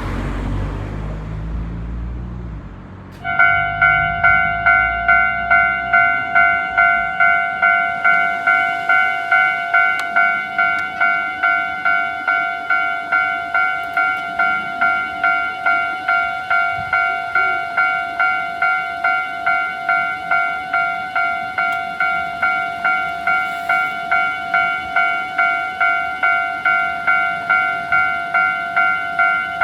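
Japanese level crossing's electronic warning bell starting up and ringing in a rapid, even rhythm of a little over two strikes a second, its standard tone set faster than usual. A low rumble comes before the bell starts.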